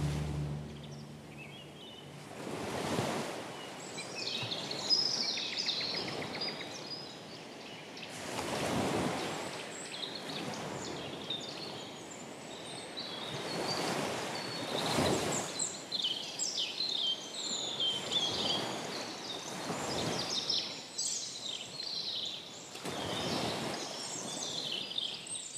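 Nature soundscape of waves washing in and out, swelling every three to six seconds, with many small birds chirping and twittering high above them. Heard as a recording in the show's soundtrack, filling a break between music tracks.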